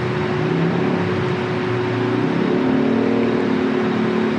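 Motor traffic and car engines running: a steady hum and road noise, with one vehicle's engine note growing louder from about two seconds in.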